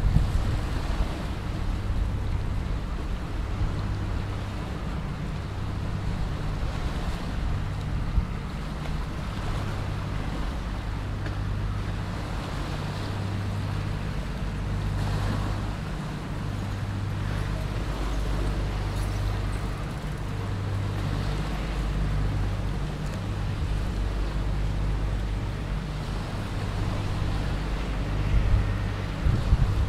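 Tugboat engine running steadily as it tows a loaded barge: a low drone, mixed with water washing against the hulls and a low wind rumble on the microphone.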